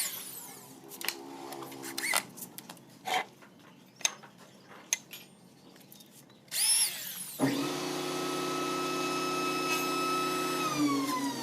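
Handheld electric power tool: scattered knocks and handling clicks, then about two-thirds of the way in the motor starts and runs at a steady whine. Near the end it spins down with a falling pitch as the trigger is released.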